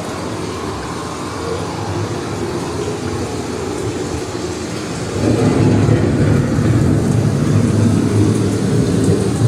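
Storm-scene sound effects of a dark boat ride: a steady rush of wind and rain, with a deep thunder rumble that swells up about five seconds in and keeps rolling.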